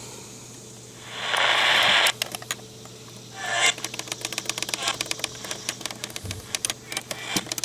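Radio static hiss swelling up for about a second, then again briefly, from a weather-radio receiver. It is followed by a run of rapid, irregular clicks.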